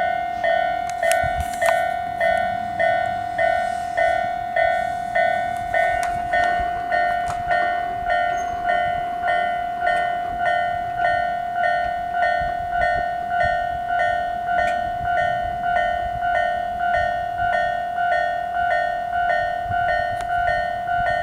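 Japanese level-crossing warning bells starting up and ringing steadily in an even ding-ding rhythm, about one and a half strokes a second. Two electronic alarm units sound together: a slow-tempo, odd-sounding standard bell on the up-line side and an Isesaki-line-type bell on the down-line side.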